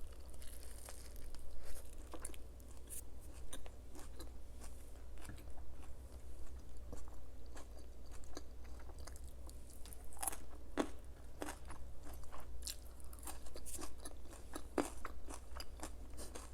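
Crunchy food being bitten and chewed close to the microphone, a steady run of irregular crisp crackles.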